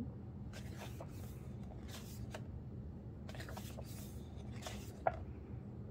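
Pages of a glossy photobook being handled and turned: a series of soft paper rustles and sweeps with a sharp tap about five seconds in, over a steady low hum.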